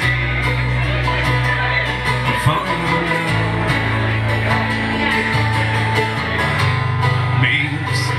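Live acoustic trio playing a country/bluegrass-style song: strummed acoustic guitar, picked banjo and acoustic bass guitar.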